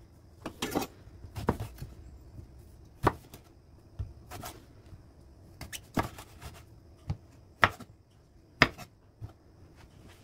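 Kitchen knife cutting an eggplant into chunks on a wooden cutting board, the blade knocking on the board about a dozen times at uneven intervals.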